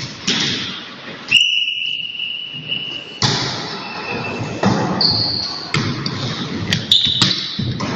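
A volleyball smacks hands and floor in an echoing gym, with several sharp slaps amid general hall noise. A steady high whistle sounds about a second and a half in and is held for nearly two seconds. Shorter high squeaks follow near the end.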